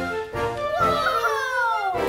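Background music, with a long falling sliding tone through the second half.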